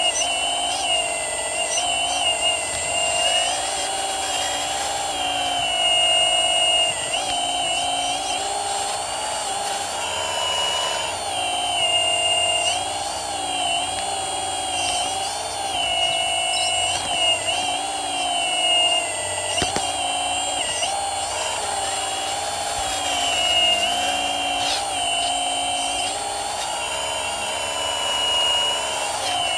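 Hydraulic pump of a radio-controlled Komatsu PC360 model excavator, a continuous high-pitched whine whose pitch dips and rises again and again as the hydraulics are worked.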